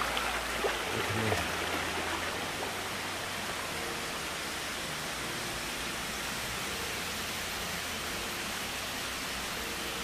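Steady rushing hiss of the Cheonggyecheon's flowing water, with a couple of light knocks in the first second and a half.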